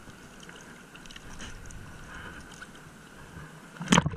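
Shallow sea water moving around the camera at the surface, with faint scattered ticks, then about four seconds in a single loud splash as water slops over the camera.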